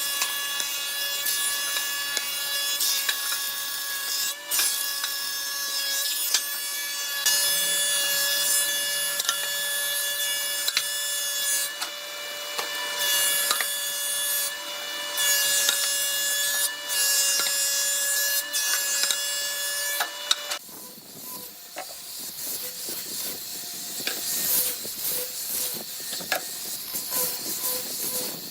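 A power tool with a steady high whine cutting or working wood for about twenty seconds, then it stops and quieter rubbing and scraping on wood follows.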